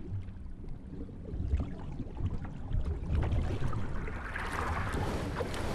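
Rushing water and wind: an irregular low rumble, with a hiss swelling louder about four seconds in.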